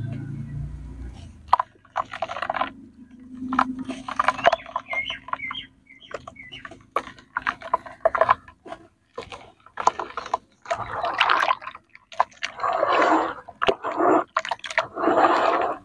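Hands crumbling lumps of wet dirt into a tub of muddy water and swishing through it: irregular splashes, sloshing and wet squelches, denser and louder in the second half.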